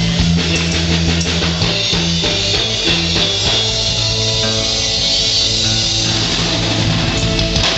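A live band playing, with electric guitars and a drum kit, loud and continuous.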